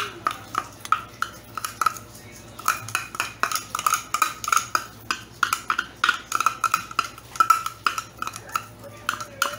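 Metal spoon scraping and tapping inside a mini food processor's bowl, scooping out chopped garlic and onion: quick irregular clicks and scrapes with a light ring from the bowl.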